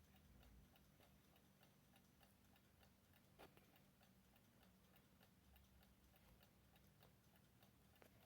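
Prim wind-up alarm clock ticking faintly, a rapid, even tick of several beats a second, with one louder click about three and a half seconds in.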